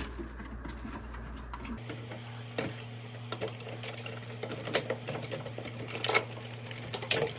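Scattered light clicks and knocks of hands and tools working on a microwave's metal panels and screws. A low steady hum comes in about two seconds in.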